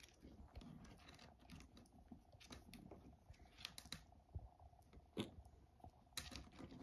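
Near silence, with faint scattered clicks and soft rustles.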